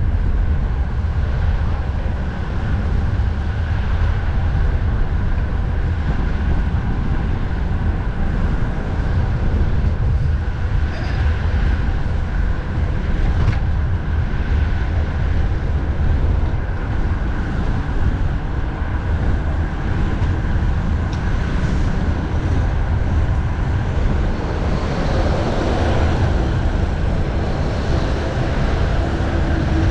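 Steady wind rumble on the microphone mixed with the running noise of heavy highway traffic, heard from a moving bicycle.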